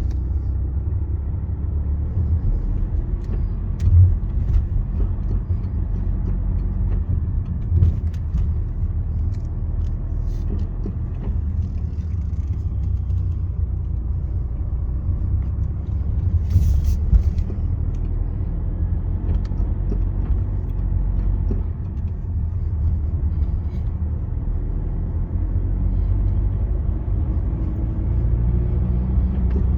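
BMW E90 320d's four-cylinder diesel drivetrain under acceleration: a steady low rumble carrying the strange noise that shows up when accelerating. Two sharper knocks stand out about 4 and 8 seconds in, and a short hiss comes near 17 seconds.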